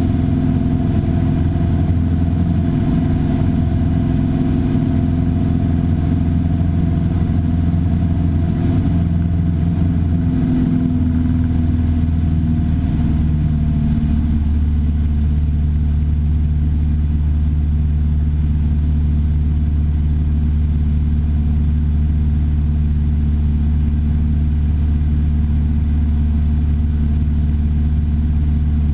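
Piper Warrior III's four-cylinder Lycoming engine and propeller droning steadily, the engine note dropping slightly about eleven to fourteen seconds in.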